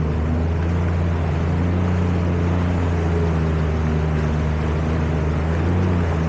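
Jet ski engine running at a steady speed underway, an even, unchanging drone with water rushing beneath the hull.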